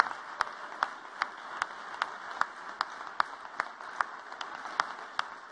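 Audience applauding, slowly fading, with sharp claps at an even pace of about two and a half a second standing out above the rest.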